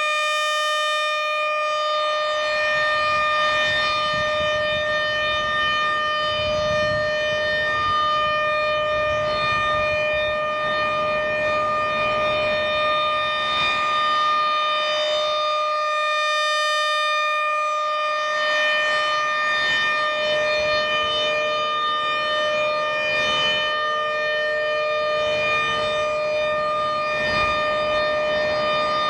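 ASC RM-130 nine-port mechanical outdoor warning siren sounding the alert signal: one loud, steady tone held at a constant pitch.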